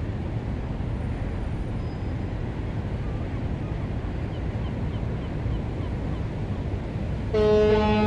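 Ship leaving port: a steady low rumble of engine and water, then a loud ship's horn blast begins near the end.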